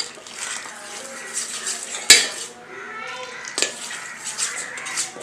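A metal spoon clinking and scraping against a stainless steel pot while rice flour is mixed with boiling water poured into it. The sharpest clink comes about two seconds in, with others about three and a half seconds in and at the end.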